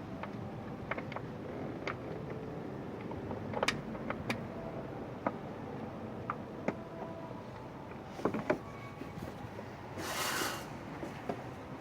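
Metal hand tools clinking and knocking against engine parts during timing belt work, scattered single clicks over a steady background hum. A brief hiss about ten seconds in.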